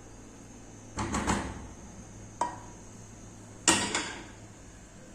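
A spoon knocking and scraping against metal cooking pots as béchamel sauce is emptied from a saucepan into a pot of soup: a few separate clanks, one short tap that rings briefly, and the loudest clank a little past halfway.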